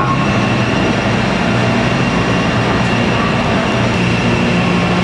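Steady drone of factory-floor machinery: a dense, even noise with a constant low hum and a thin high tone running through it.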